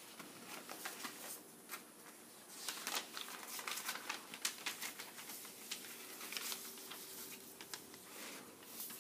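Paper rustling and crinkling as manila envelopes are opened and sheets of paper are slid out and unfolded on a tabletop, a string of short scrapes and crackles that gets busier about two and a half seconds in.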